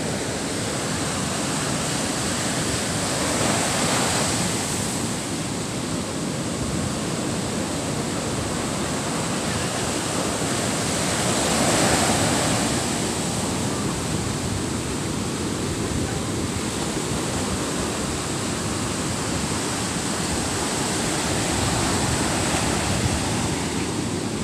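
Surf breaking and washing up a sandy beach: a steady rush of waves that swells louder about four seconds in and again about twelve seconds in.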